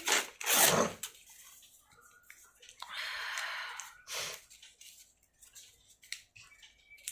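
A person sniffling and breathing noisily through the nose, the nose irritated by tickling it to set off a sneeze. A strong sniff or snort comes right at the start, a softer hissing breath about three seconds in, and another short sharp sniff just after four seconds.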